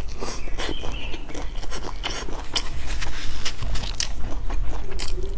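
A person chewing a mouthful of pan-fried flatbread, with many short, irregular mouth clicks.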